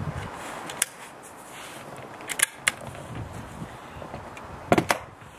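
Brocock Compatto PCP air rifle's side-lever action being worked by hand: a few sharp metallic clicks and clacks, the loudest pair near the end.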